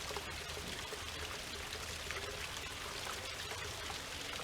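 Small waterfall: water trickling down a granite rock face into a pool, a steady pouring splash.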